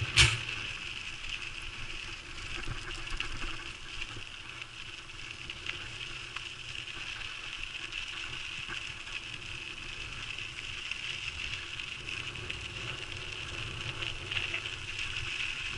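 Mountain bike rolling along a dirt and gravel trail: the tyres run steadily on loose gravel with small rattles and clicks, over a constant high buzz. There is a sharp knock just after the start.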